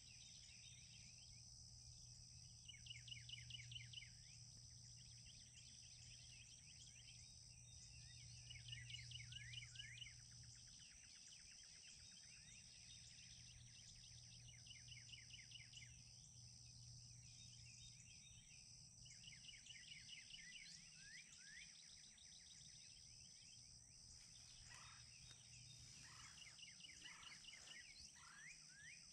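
Wild turkey gobbling faintly, a rattling call a second or two long, repeated about five times over a steady high-pitched hiss.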